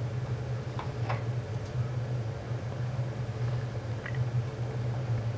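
KORAD KKG305D linear bench power supply running hot under a load of about 40 W, giving a steady low hum. A few faint clicks come about a second in and again near four seconds as its adjust knob is turned.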